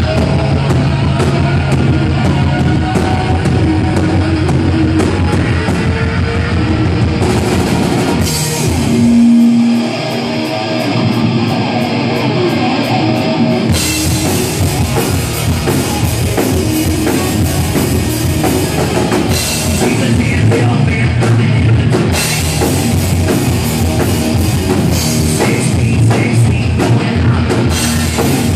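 Live hard rock band playing: distorted electric guitars, bass guitar and drum kit. About ten seconds in, the drums and low end drop out, leaving a held note, and the full band comes back in about four seconds later.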